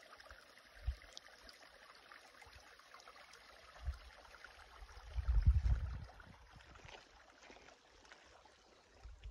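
Faint steady rushing of a small rocky mountain creek, with a few low rumbles on the microphone, the strongest about five to six seconds in.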